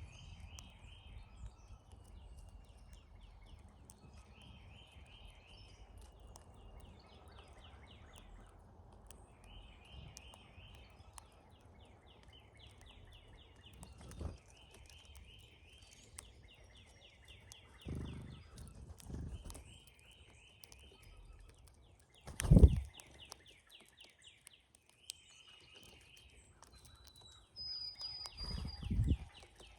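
Brown-headed cowbirds at a feeder: a rattling chatter repeated every second or two, and near the end two short, thin, high whistles. Several dull thumps break in, the loudest about two-thirds of the way through.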